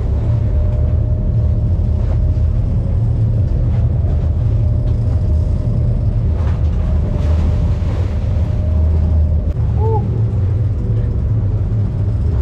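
Boat engine running steadily with a low rumble and a faint steady whine above it.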